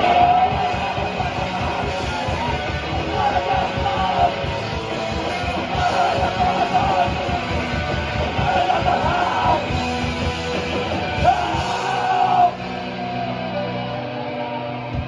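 Live punk band playing loud and fast: pounding drums, distorted electric guitars and a yelled vocal. About twelve seconds in the drums and vocal stop and the guitars ring on.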